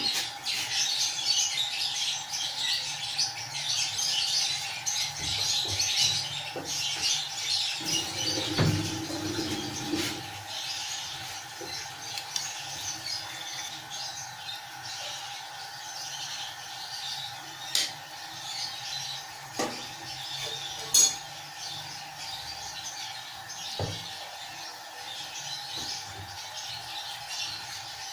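Paratha dough sizzling on a hot cast-iron tawa, the crackle strongest over the first ten seconds and fainter after. Later a few sharp clicks of a metal spoon on the griddle come as oil is spread over the bread, the loudest about twenty seconds in.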